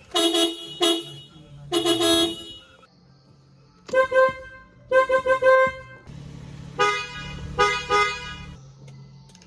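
Car horns honking in a series of short beeps and longer blasts, some in quick bursts of pulses, at a few different pitches.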